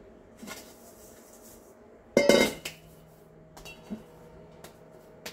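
Fingers rubbing olive oil around the inside of a stainless steel mixing bowl, with one loud metallic clang of the bowl about two seconds in, then a few light taps.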